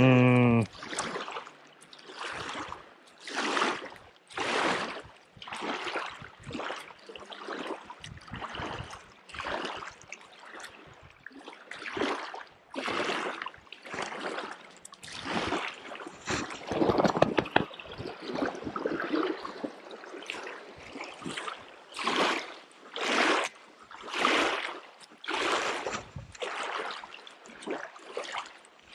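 Small wind-driven waves lapping and splashing against a rocky shoreline, a short splash roughly every second.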